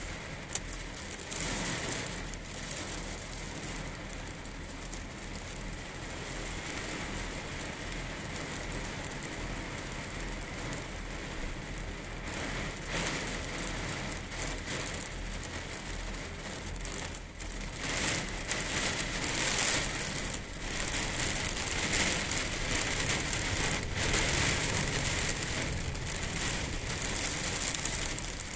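Heavy rain pouring down onto waterlogged, puddled ground as a steady hiss, growing louder in surges about two-thirds of the way through.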